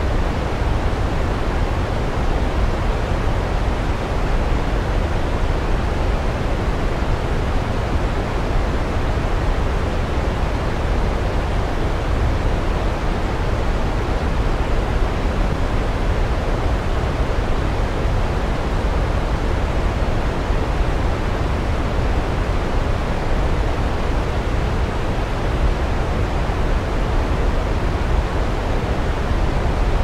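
Waterfall rushing steadily, an even, unbroken noise of falling water, heaviest in the deep low end.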